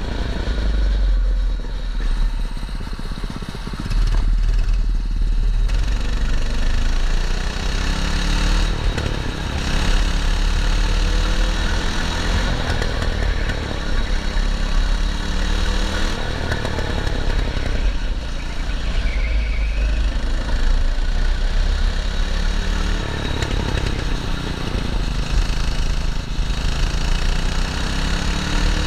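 Small race kart engine running under load as the kart is driven, its pitch rising and falling repeatedly as the throttle is opened and eased off.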